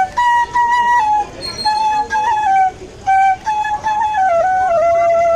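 Bamboo flute (bansi) playing a melody: a single line of held notes stepping up and down, with short breaths between phrases and a long held low note near the end.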